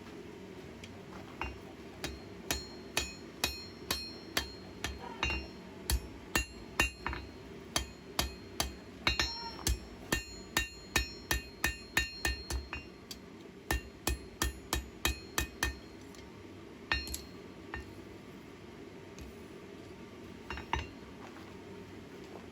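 Hand hammer striking a steel knife blank on an anvil while forging, about two to three blows a second, each with a bright ringing of the anvil. The hammering stops about 16 seconds in, followed by a few single blows.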